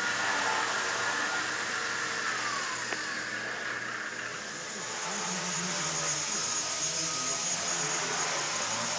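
Helimax Novus CP micro collective-pitch RC helicopter's electric motor and rotor whirring steadily. The whine falls in pitch and the sound dips a few seconds in, then picks up again with a higher whine as it lifts off.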